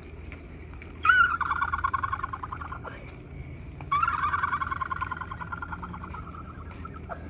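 Two long, high, wavering vocal calls. The first comes about a second in and lasts about two seconds; the second starts about four seconds in, is longer, and fades slowly.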